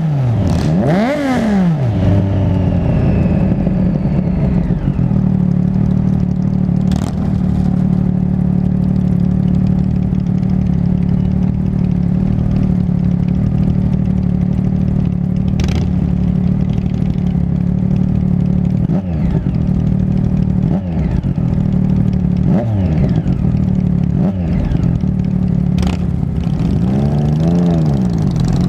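Motorcycle engine running at steady cruising revs. The pitch drops and climbs again about a second in and once more near the end as the revs fall and pick back up.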